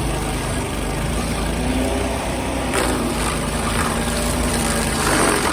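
Heavy machinery engine running steadily, with brief louder noisy surges about three seconds in and near the end.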